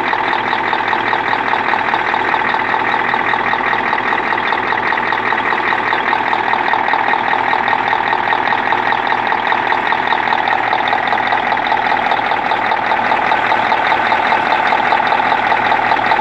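YaMZ-238 V8 diesel engine running steadily with a rapid knock. The knock is present in every mode except coasting, and the engine feels like it is misfiring on throttle.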